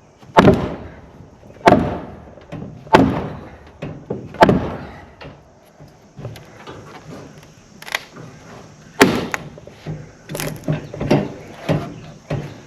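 Hammer blows on barn framing: four heavy strikes about a second and a half apart, a short lull with small taps, then another heavy blow and a quicker run of lighter strikes near the end.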